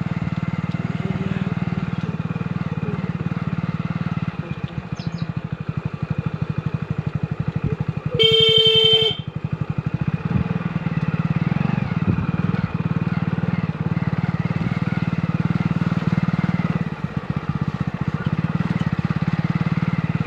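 Motorcycle engine running steadily at low speed with a rapid even pulse, and a single loud horn honk of about a second a little before the middle.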